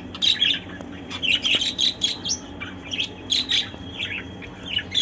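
Budgerigars chirping: a quick, busy string of short high chirps and warbles.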